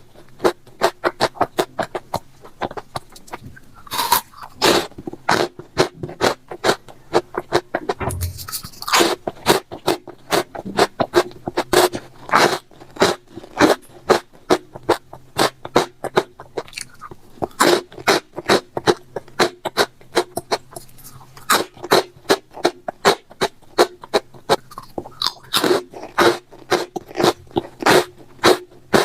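Close-miked eating: rapid crisp crunching and chewing, several crunches a second, going on throughout.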